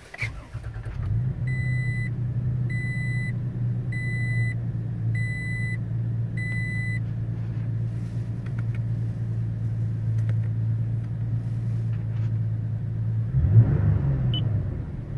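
2020 Toyota Tacoma TRD Sport pickup starting up and settling into a steady idle. The truck's warning chime beeps five times, about one beep every 1.3 seconds, and the engine is briefly revved near the end.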